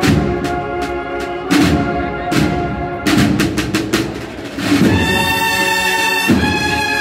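Cornet and drum band (banda de cornetas y tambores) playing a Holy Week processional march: side drums beat a steady rhythm under held notes, and the cornets come in loud about five seconds in.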